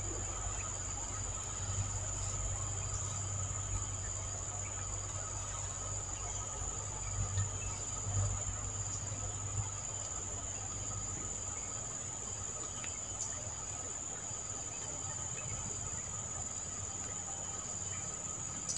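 Insects calling steadily on one high pitch without a break, over a low steady rumble.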